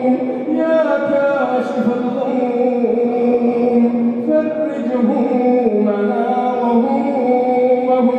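Melodic Arabic chanting of a Ramadan night supplication (du'a) in long, wavering held notes, continuous throughout, with no clear words.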